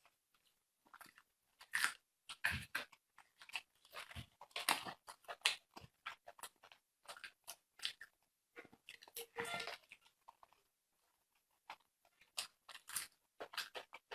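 A person chewing and biting fatty pork belly close to the microphone: irregular wet crunches and mouth clicks, with a short lull about eleven seconds in.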